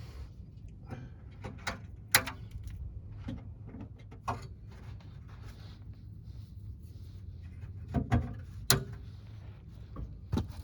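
Irregular clicks and knocks, about eight of them with the loudest near two seconds in and around eight seconds in, as the taillight wiring harness is handled and fed along the metal trailer frame. A steady low hum runs underneath.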